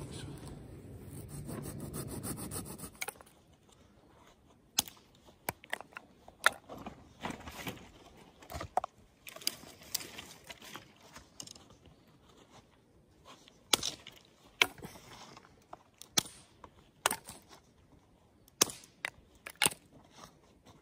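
Dry sticks and branches being handled and piled for firewood: rustling and scraping for the first few seconds, then a run of separate sharp snaps and knocks of wood.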